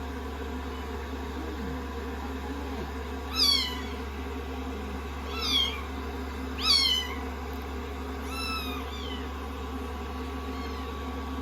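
A 16-day-old kitten mewing four times, high thin calls that fall in pitch, and a fainter fifth mew near the end, over the steady hum of a hair dryer.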